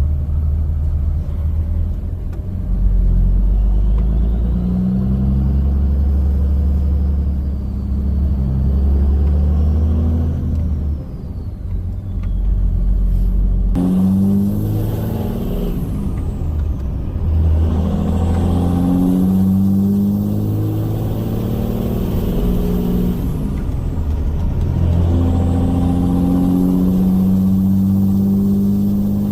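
5.9 Cummins turbo-diesel in a Ram 3500 pulling hard, heard from inside the cab as a low drone. Its note climbs and drops several times as it runs through the gears of the six-speed, with a faint turbo whistle rising and falling above it.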